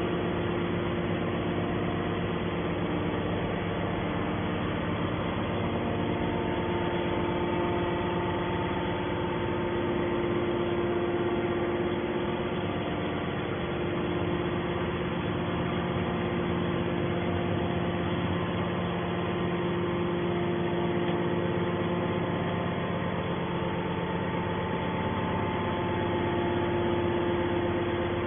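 An engine running steadily, a constant hum with several steady tones.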